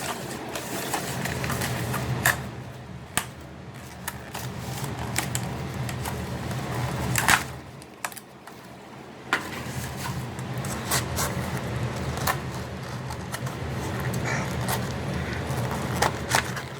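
Scattered light clicks and knocks of small dryer parts being handled, over a steady low hum.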